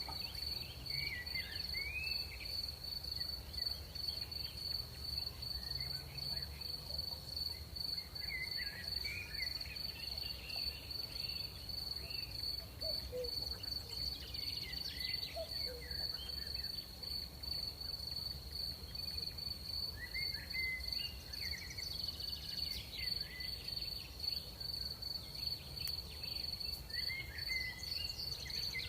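Crickets trilling in one continuous high, steady tone, with short chirping calls from another animal coming every several seconds. A faint low rumble runs underneath.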